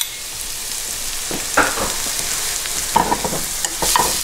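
Minced garlic sizzling in oil in a nonstick frying pan on medium-low heat, with a steady hiss. A metal spoon stirs and scrapes it against the pan a few times from about a second in.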